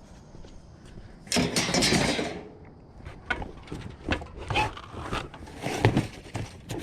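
Handling a boxed shop light and its cardboard packaging: a burst of rattling and scraping about a second in, then scattered knocks and clicks of plastic and cardboard being moved.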